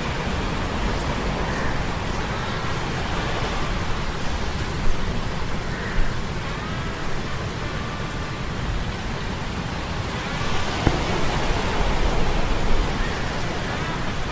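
Sea-storm ambience: steady rushing rain-and-surf noise with a low hum of metal gears underneath. The storm noise swells louder about ten seconds in, then eases back.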